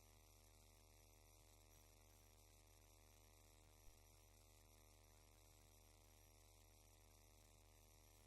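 Near silence: a faint steady electrical hum, with one small click about four seconds in.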